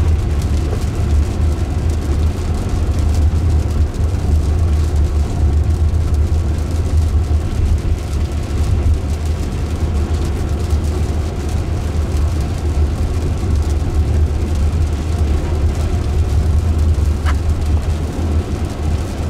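Steady road noise inside the cabin of a Jaguar I-Pace electric SUV driving on a wet road: a deep low rumble with tyre hiss over it.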